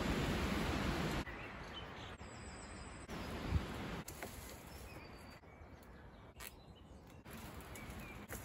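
Outdoor ambience: a steady hiss that cuts off abruptly about a second in, then a quieter background with faint bird chirps and a few scattered clicks.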